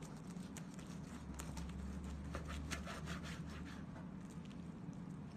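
A knife sawing through a netted pork roast and tapping on the cutting board, a run of quick scrapes and clicks that mostly die away after about three seconds, over a low steady hum.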